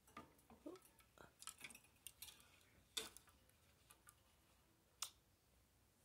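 Faint, scattered clicks and taps of a budgie's claws and beak on a plastic bath dish and cage wire, with two sharper clicks about three and five seconds in.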